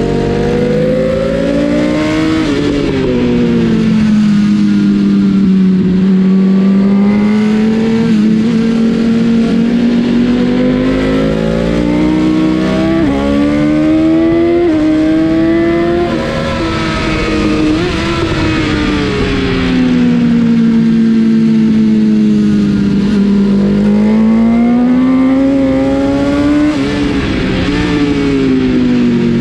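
BMW S1000 RR's inline-four engine at racing revs, climbing in pitch through quick upshifts and dropping away under braking, several times over as the bike laps a track.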